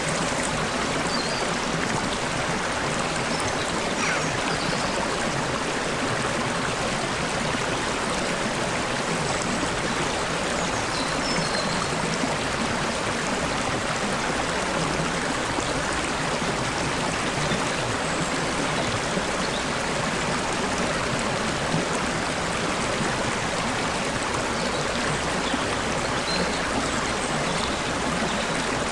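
Babbling stream, water trickling and flowing steadily over stones, with a few faint, brief bird chirps here and there.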